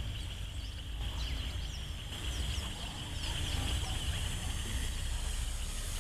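Outdoor ambience: many short bird chirps over a steady high-pitched hum, with wind rumbling on the microphone.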